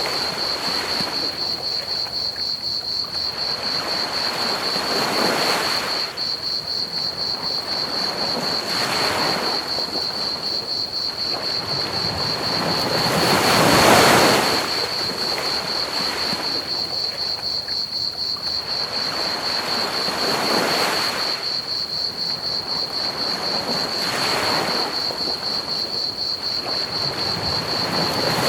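Ocean waves washing onto a beach, swelling and fading every four to six seconds, the biggest about halfway through, over a steady hiss of pink noise. A steady high-pitched cricket chirring runs underneath.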